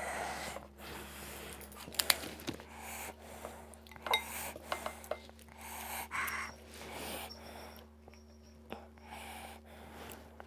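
Soft eating sounds: a mouthful of fuchka (pani puri) being chewed, with a few small sharp clicks and crackles as a crisp hollow puri shell is cracked open by hand.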